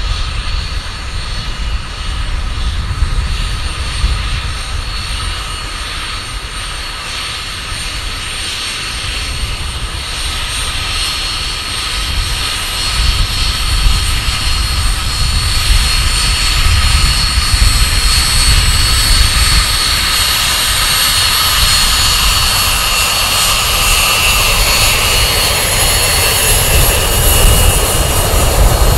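Four Lycoming ALF 502 turbofans of a BAe 146-100 at taxi power, a steady high-pitched whine over a low rumble. It grows louder as the jet rolls closer and passes by near the end.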